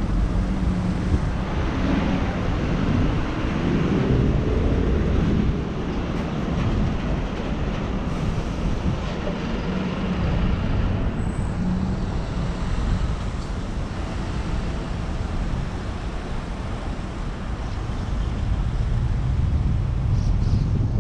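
Road traffic on a wide urban street: cars and trucks passing, with one vehicle's engine rising in pitch a few seconds in as it speeds up.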